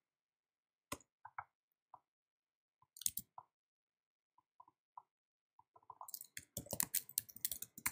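Computer mouse and keyboard clicks: a few scattered clicks, then a quick run of typing near the end.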